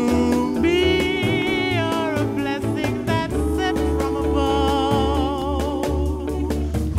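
Background music: a song with a steady low beat and held, wavering melody notes.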